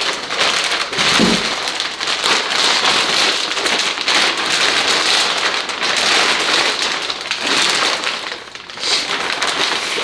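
Plastic wrap crinkling and rustling continuously as it is peeled and pulled off a new radiator, easing briefly near the end.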